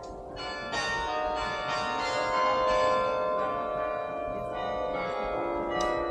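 Carillon bells of the Singing Tower ringing, bells struck one after another about every half second, their tones overlapping and ringing on.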